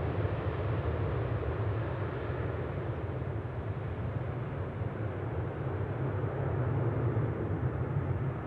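Boeing 747-400 freighter's four jet engines climbing away after takeoff: a steady low rumble that grows slightly fainter over the first few seconds.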